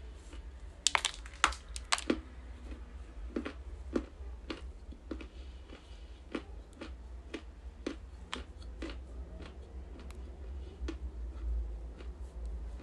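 Crunchy bites into a bar of pressed sea clay: a few sharp snaps about a second in, then steady crunching chews about twice a second, close to the microphone.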